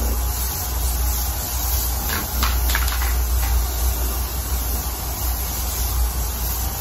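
Aerosol spray adhesive hissing steadily as it is sprayed onto foam, over a steady low hum, with a few light clicks about two to three seconds in.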